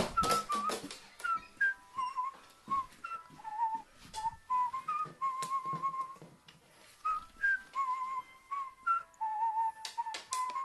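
Whistling: a wandering string of short, wavering notes, with scattered light taps and a burst of clatter in the first second.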